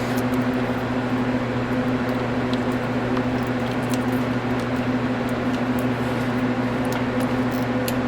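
A steady mechanical hum with a few constant low tones, with a handful of faint light clicks now and then.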